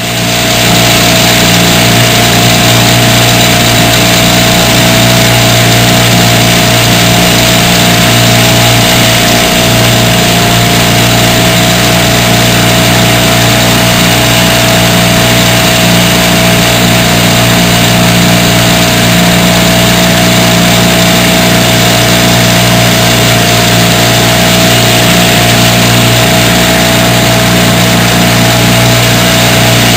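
Dinghy outboard motor running at a steady, even speed, loud throughout.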